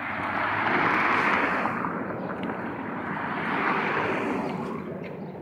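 Vehicles passing on a road: two go by one after the other, their rushing tyre noise swelling and fading each time.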